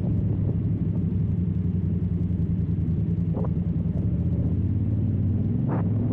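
Honda CRF1000L Africa Twin's parallel-twin engine running steadily at low speed on a dirt track, with a low rumble. Two brief knocks come about three and a half seconds in and near the end.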